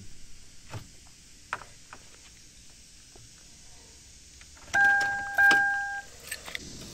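A few light key clicks at the ignition of a 2011 Kia Sedona, then two short steady electronic chimes from the dashboard about five seconds in. No starter sound follows: the engine does not crank, the no-crank, no-start fault.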